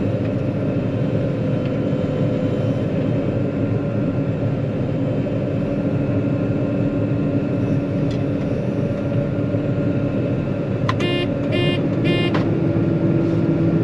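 John Deere 9500 combine running steadily under load. About eleven seconds in, three short high electronic beeps sound, typical of a reverse alarm as the machine backs up, and the engine note shifts and rises a little right after.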